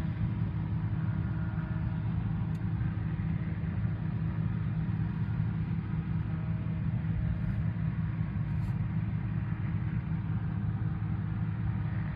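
A large engine running steadily, giving a continuous low rumble, with a couple of faint ticks.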